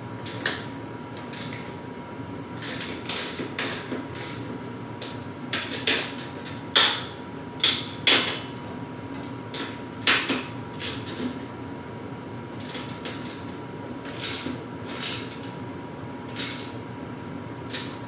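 Irregular metallic clinks and knocks of hand tools and hardware against garage door track brackets and bolts, with a few louder knocks in the middle.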